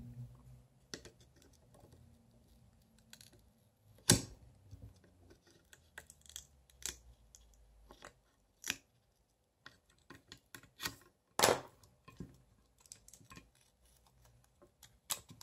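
Scattered small clicks and scrapes of tweezers prying an LED floodlight's driver board free of soft potting and out of its housing, with two louder snaps, one about four seconds in and one about eleven seconds in.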